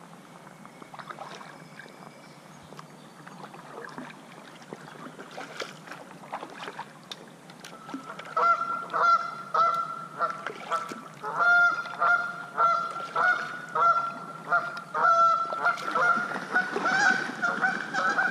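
Geese honking: a long run of repeated honks, two or three a second, starting about eight seconds in and carrying on. Before the honking there are only faint water sounds from the kayak paddle.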